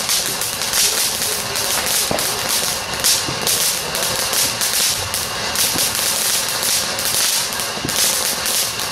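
Ground fountain firework spraying sparks: a steady loud hiss with many sharp crackles and pops mixed in.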